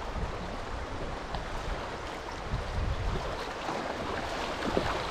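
Steady rushing of river water around a canoe running through rapids, with a low rumble of wind on the microphone.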